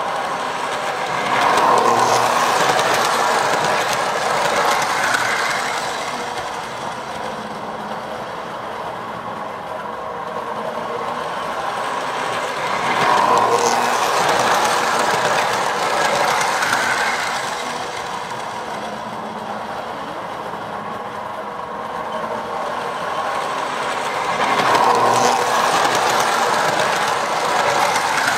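Lionel Liberty Special toy train running on tubular metal track: its electric motor hums and its wheels rattle over the rails. The sound swells three times as the train passes close by on each lap, about every eleven to twelve seconds.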